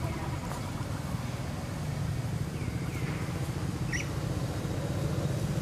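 Steady low rumble of outdoor background noise, with a few short high chirps around the middle and one brief rising squeak about four seconds in.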